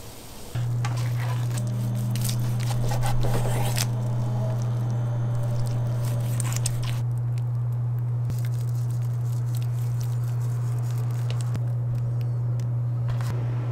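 A loud, steady low hum sets in about half a second in and holds. Over it, during the first few seconds and again briefly later, come squishing and crunching sounds of a knife cutting through a rack of smoked, sticky-glazed spareribs.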